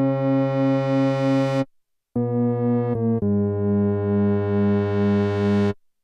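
Dreadbox Nymphes six-voice analog synthesizer playing low held notes with a slow pulsing wobble, each growing brighter as it sustains. The first note cuts off sharply a little under two seconds in; after a short pause come two short notes and then another long held note, which also stops abruptly near the end.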